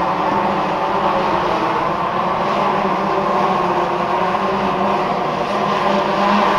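Large multirotor drone flying, its propellers giving a steady, high buzz with a few held pitches that waver slightly.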